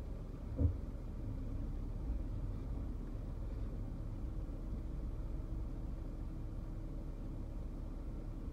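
Steady low rumble of a car's engine and tyres heard from inside the cabin while moving slowly in traffic, with a single short thump about half a second in.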